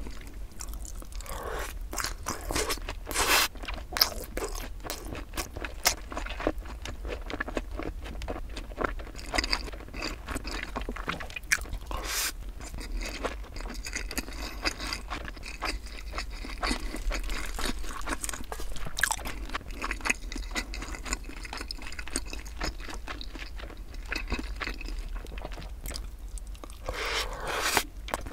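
Close-miked chewing of sweet-sauced Korean fried chicken (yangnyeom chicken) with rice: a steady run of wet crunches and mouth clicks, with a louder crunch about three seconds in.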